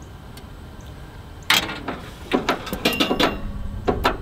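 Metal clicks, knocks and clinks from a stainless Camp Chef outdoor camp oven being handled: its door and controls worked while someone hunts for the ignition before lighting it. A sharp clatter about a second and a half in is followed by a quick run of knocks, with two more near the end, over a low rumble.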